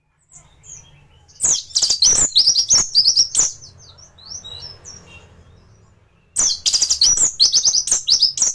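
Orange-headed thrush singing in full song: two loud bursts of rapid, high chattering notes, with softer, quieter phrases between them.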